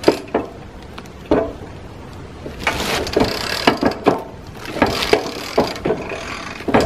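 Hand winch being cranked in first gear, its ratchet and gears clicking in quick uneven runs as it drags a cedar log up the ramps by rope. A few separate knocks come first, and the clicking thickens from about the middle on.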